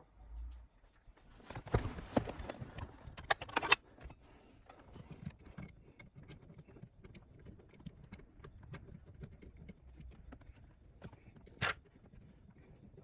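Handling noise: a run of clicks, knocks and light rattles, densest about two to four seconds in, then scattered ticks and one sharp knock near the end.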